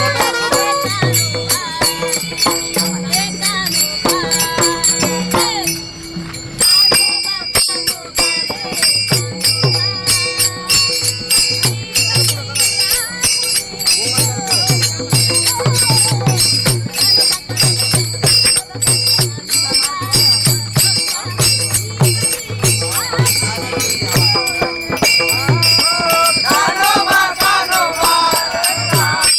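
Warkari bhajan music: many small hand cymbals (taal) clashing in a fast, steady rhythm with a ringing metallic shimmer, over a drum beating a repeated low pattern. A singing voice comes in again near the end.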